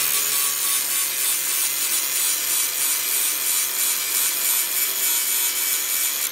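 Angle grinder with a coarse DeWalt grinding disc rough-grinding a MIG weld bead down flush on steel sheet metal: a steady, loud grinding rasp over the motor's steady whine.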